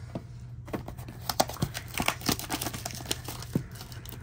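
Plastic shrink-wrap on a trading-card blaster box crinkling and tearing as it is pulled off, a rapid irregular crackle that starts about a second in.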